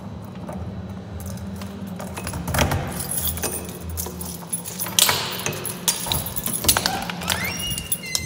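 Jingling and clinking handling noise close to the microphone over a steady low hum, with the clicks growing denser after a couple of seconds and a short rising tone near the end.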